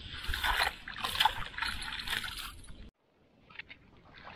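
Shallow water splashing and sloshing as fish thrash in a cast net being gathered by hand. It cuts off abruptly a little under three seconds in, followed by faint trickling and small splashes.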